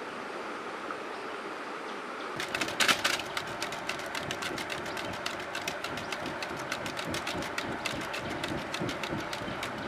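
Wood fire crackling and popping with dense, irregular clicks, starting about two and a half seconds in with a louder burst; before that, only a steady soft hiss.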